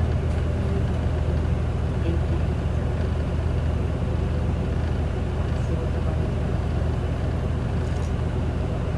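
Inside the cabin of an Isuzu Erga city bus, its diesel engine running steadily with a constant low hum, moving slowly or barely rolling.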